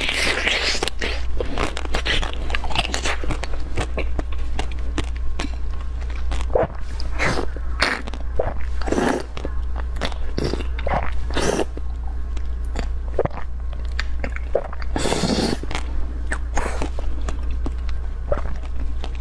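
Close-miked bites and chewing of round purple jelly balls, an irregular series of mouth sounds with a few louder bites in the middle, over a steady low hum.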